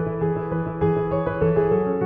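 Background music: soft piano and keyboard chords over a steady pulse.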